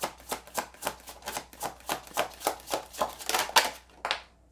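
A tarot deck being shuffled by hand, the cards slapping together in a steady rhythm of about three to four strokes a second. The shuffle gets louder and denser a little after three seconds, then stops just before the end with a couple of last taps.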